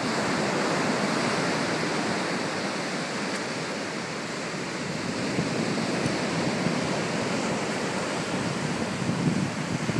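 Ocean surf breaking and washing up a beach: a steady rushing of waves, swelling and easing a little.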